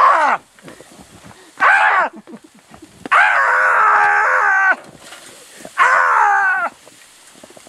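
A man screaming in four loud cries: a short one at the start, another near the two-second mark, a long held scream of about a second and a half in the middle, and a fourth near the end.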